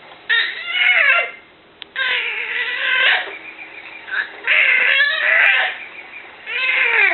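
Loud, high-pitched crying or screaming, four cries of about a second each with short gaps, the pitch bending and falling away at the end of each cry.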